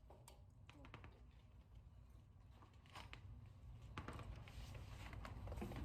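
Near silence: a faint low rumble with scattered small clicks, growing a little louder near the end.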